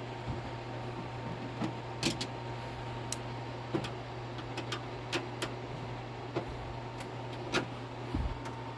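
Irregular small metallic clicks and ticks of a screwdriver turning the screws of a computer case's side panel, over a steady low hum.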